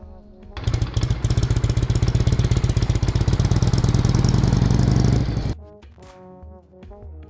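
Harley-Davidson Shovelhead V-twin engine running with a fast, even exhaust pulse for about five seconds, cutting in and out suddenly. Background music plays before and after it.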